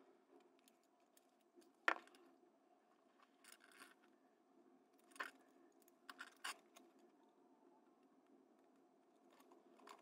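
Faint, scattered clicks and scratches of fingers untwisting the copper wire pairs of a Cat6A shielded Ethernet cable, the sharpest click about two seconds in and a few more between five and seven seconds, over quiet room hum.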